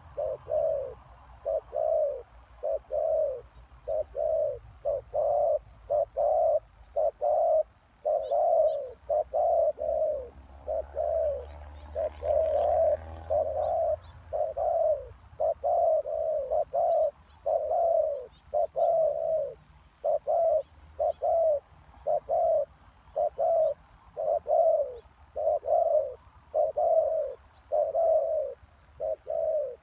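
Spotted dove cooing: a continuous run of short, low coo notes, about two a second.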